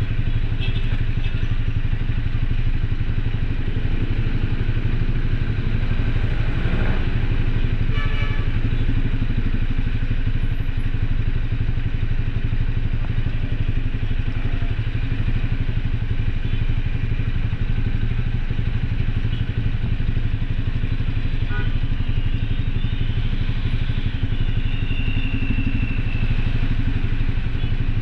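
An engine running steadily at an even pitch, with a few faint clicks and knocks.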